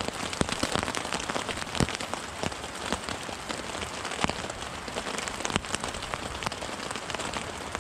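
Rain falling on a tarp overhead: a steady hiss with many irregular sharp drop hits.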